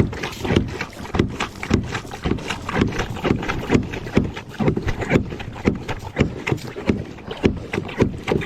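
Water splashing and sloshing around a fishing kayak in a steady rhythm of about two to three strokes a second.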